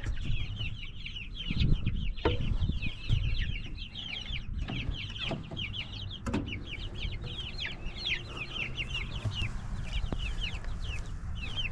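A flock of young meat chickens peeping: many short, high, downward-sliding chirps overlapping without a break, with a few sharp clicks here and there.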